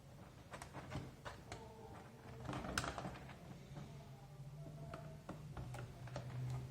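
Scattered light plastic clicks and taps from the parts of an old, disassembled computer keyboard being handled, with a slightly louder cluster about three seconds in.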